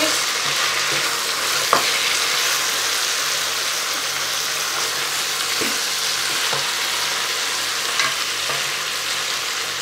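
Pork ribs sizzling in hot fat as they brown in a multicooker bowl on its frying setting, with a few light knocks of a plastic spatula against the bowl as the ribs are turned.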